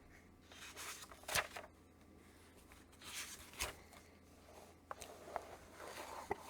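Faint handling and rustling of comic book paper pages, with a few short scuffs, the clearest about a second and a half and three and a half seconds in.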